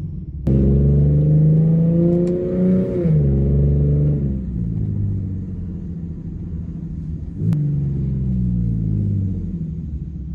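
Infiniti G37's 3.7-litre V6 exhaust through an ISR single exhaust, pulling with the pitch rising, then dropping off about three seconds in. It picks up again near the end and slowly winds down.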